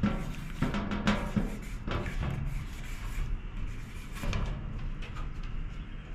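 Felt tip of a 10 mm paint-filled marker rubbing and squeaking across a metal panel in a series of short strokes, stopping about four and a half seconds in.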